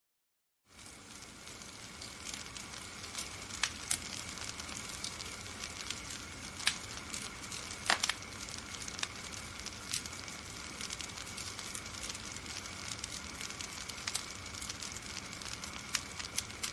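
Fire burning: a steady hiss with scattered sharp crackles and pops, the loudest pop about eight seconds in. It fades in after a moment of silence at the start.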